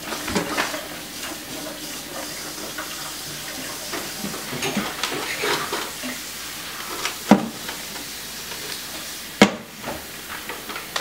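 Plastic bag of frozen blueberries crinkling as it is handled and cut open with scissors, with a couple of sharp knocks, one about seven seconds in and one about nine and a half.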